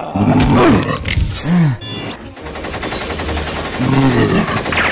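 Action-film sound effects: a monster growling and snarling, then from about halfway a long, rapid burst of machine-gun fire, with another growl near the end.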